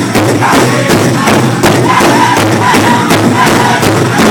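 Powwow drum group singing a chicken dance song in high voices while beating a big drum in a steady, even beat.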